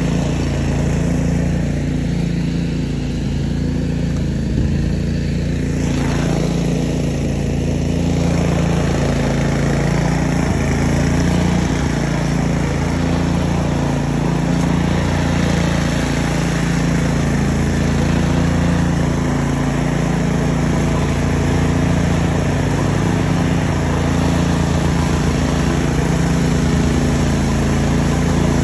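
DR Field & Brush Mower's engine running steadily.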